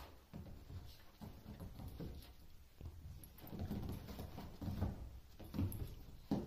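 Toy poodle's paws scrabbling and thudding on a leather sofa cushion as she spins around, in irregular soft scuffles with several heavier thumps in the second half.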